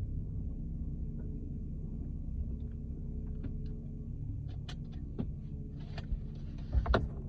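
2012 Lincoln MKZ rolling slowly with a steady low rumble. From about halfway through come a series of short creaks and clicks from the wheel and suspension, ending in a louder knock near the end: the creaking noise the car makes pulling in and out of driveways.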